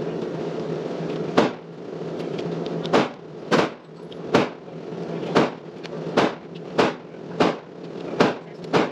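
Gunshots from neighbouring lanes of an indoor shooting range: about ten sharp reports at an uneven pace, each with a short echo.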